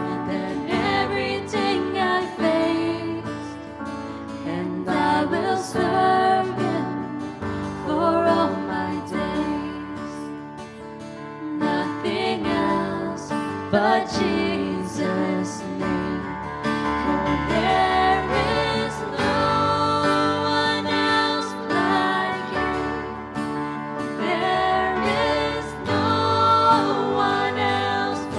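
Worship band music: acoustic guitar and digital piano playing a song, with voices singing.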